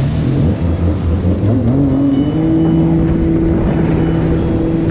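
Jet ski engine easing off, then revving up: its pitch climbs about a second and a half in and holds steady at high revs.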